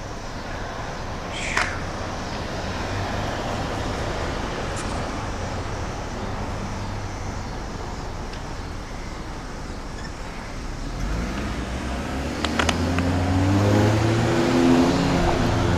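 Road traffic with a car engine close by: about eleven seconds in, the engine note rises and grows louder as the car accelerates. A couple of sharp clicks stand out, one near the start and one about twelve seconds in.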